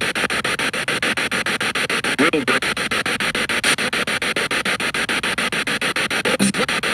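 Spirit box radio sweeping through stations, played through a portable speaker: hissing static chopped about ten times a second, with brief clipped fragments of radio voices about two seconds in and near the end. The uploader hears the fragment near the end as a spirit saying "That's right... Now...".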